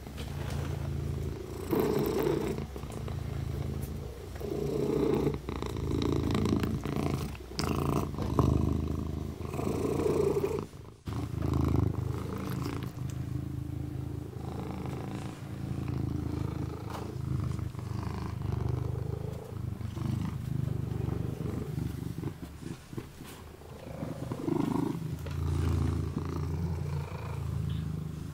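Kitten purring steadily and close up while it grooms, with soft wet licking sounds from washing its paw over the purr.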